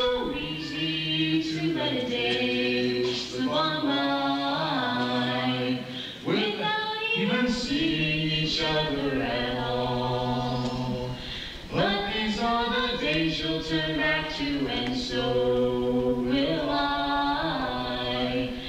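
A young woman and a young man singing a duet into handheld microphones, amplified through a sound system: sung phrases with long held notes, breaking briefly about six and twelve seconds in.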